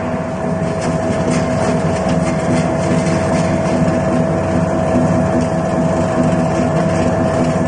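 Screw-type peanut oil expeller running steadily as it presses: a constant mechanical drone with a steady whine on top.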